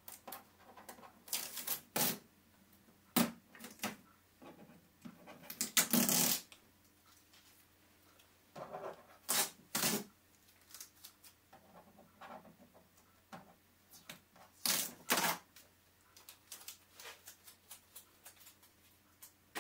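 Blue transport tape being peeled off a printer's plastic casing: several short tearing rips, the loudest about six seconds in, among lighter clicks and rustles of hands on the plastic.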